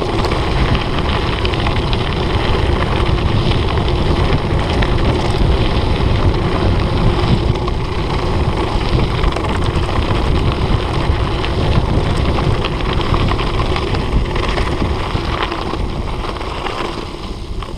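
Mountain bike descending fast on a dirt and gravel road: wind buffeting the microphone and tyres rumbling over the surface, with frequent knocks and rattles from the bike over bumps. It eases slightly near the end.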